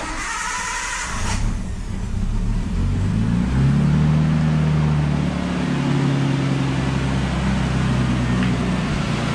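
Nissan Skyline's RB20 straight-six being started: the starter cranks for about a second, the engine catches, and its speed rises a few seconds in to a fast cold-start idle that then holds steady.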